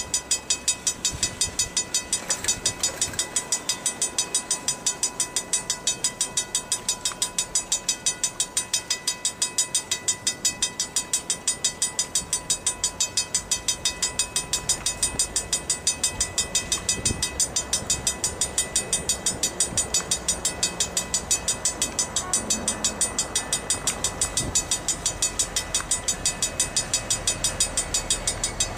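Level-crossing warning bell ringing in a steady rhythm of about three strokes a second. A low rumble builds beneath it from about halfway as the train approaches, with a couple of single thumps.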